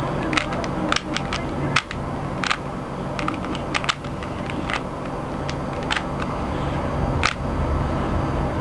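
A Rubik's Cube being turned by hand: irregular plastic clicks and snaps as its layers are twisted, over a steady low background hum.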